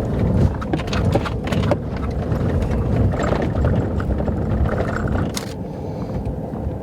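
A vehicle rides over rough ground, heard from inside: a steady low rumble with frequent knocks and rattles.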